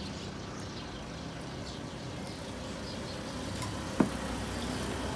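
Steady low rumble of passing road traffic, with a single sharp knock about four seconds in.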